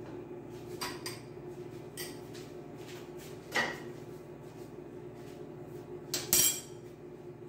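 Microwave oven running with a steady hum, while dishes and utensils give a few light clinks and knocks. The two loudest knocks come about three and a half and six seconds in.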